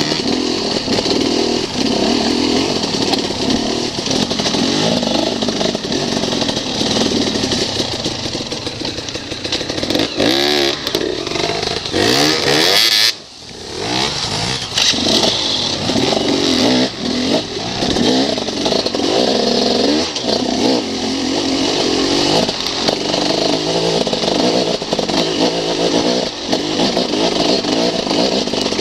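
Enduro dirt bike engines running hard on a steep trail climb, the revs rising and falling over and over with the throttle. About twelve seconds in there is a loud rushing surge, then the sound drops away briefly before the engine note comes back.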